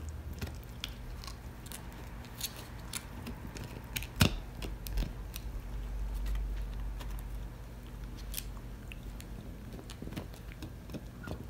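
A Shichon (Shih Tzu–Bichon mix) gnawing on a bone-shaped chew treat: irregular crunching and clicking of teeth on the treat, with one louder crack about four seconds in.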